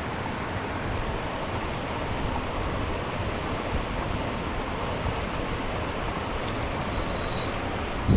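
Shallow creek rapids rushing steadily.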